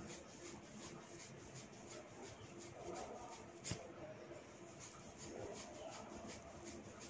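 One sharp crack about halfway through, typical of hair cracking, where a twisted lock of hair is tugged until it pops at the scalp. Faint rustling of hands working through hair runs underneath.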